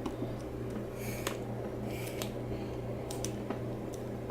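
A few faint, light clicks and taps, plausibly the plastic sealing-cap strip being pressed into the AGM battery's filler holes, over a steady low hum.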